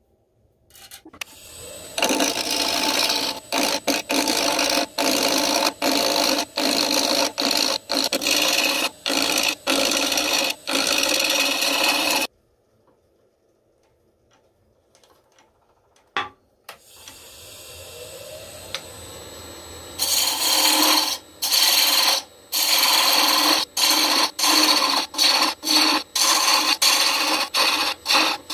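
A wood lathe spins up, and a turning tool cuts into a spinning block of resin-impregnated maple. The loud scraping cut keeps breaking off briefly as the tool is lifted and reapplied. It stops for several seconds, the lathe runs on its own more quietly, and near the end the cutting starts again.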